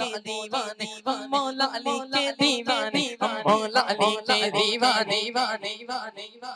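A man chanting through a microphone and sound system, repeating one short syllable pattern quickly and evenly, about five syllables a second, over a steady held low tone.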